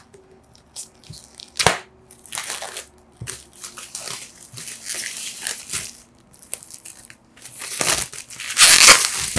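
Plastic wrap being crinkled and torn off a bundle of books, in irregular rustling bursts, the loudest near the end.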